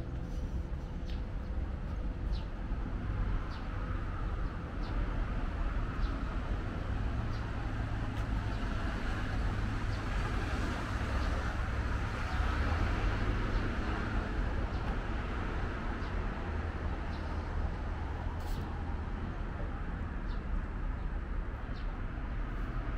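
Street ambience: a steady low traffic hum, with the noise of a passing vehicle that swells to its loudest about halfway through and then fades. Faint light ticks are scattered throughout.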